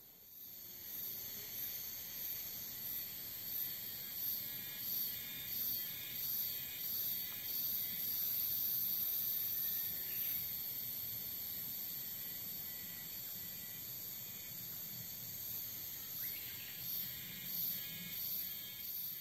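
A chorus of insects shrilling, very high-pitched and continuous, swelling and fading over a second or so at a time.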